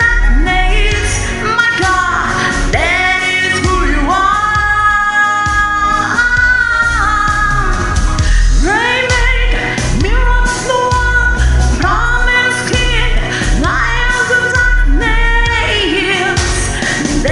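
A woman singing a gospel worship song over instrumental backing, holding long notes that slide up and down between phrases.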